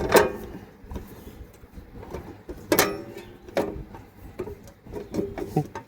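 A few scattered knocks and clicks of parts being handled and fitted inside a temporary power outlet panel, with quieter handling noise between them.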